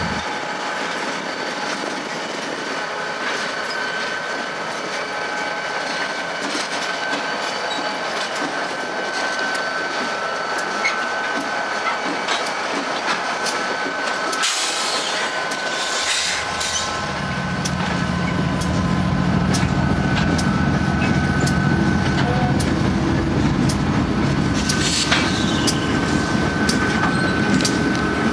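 Slow freight train of CSX and Kansas City Southern diesel locomotives rolling past. Steel wheels click over the rail joints, and a steady high whine runs under them. From about halfway a diesel engine's low drone comes in and grows louder as the Kansas City Southern units draw near.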